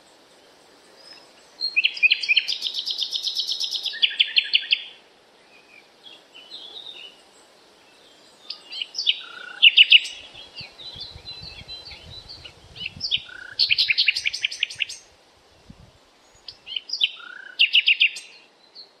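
Birds singing: bursts of rapid trilled notes, one about two seconds in and another near the end, with scattered high chirps between them and brief quiet pauses.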